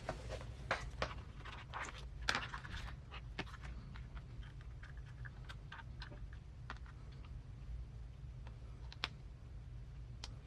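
Scattered light clicks and taps of small screws, pins, gears and bearings being handled on a workbench during RC transmission assembly. The clicks come thick in the first few seconds, then only now and then. A steady low hum runs underneath.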